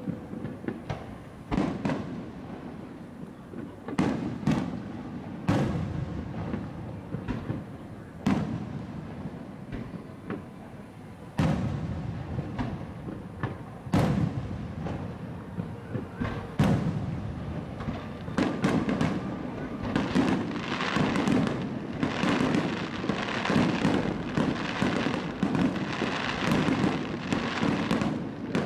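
Aerial fireworks bursting: single booms every second or two, then, from about two-thirds of the way in, a dense barrage of rapid bangs and crackle.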